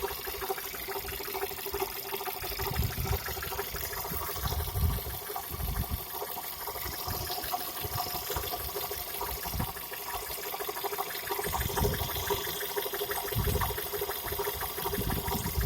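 Skoda 1.4 TSI engine running, with a steady whine and fast ticking, an extraneous noise that the owner traces to the water pump. A few low thumps come and go.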